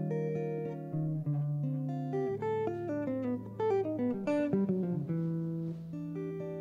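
Solo jazz archtop guitar playing a slow ballad passage: plucked single notes and chords, ending on a chord that rings on near the end.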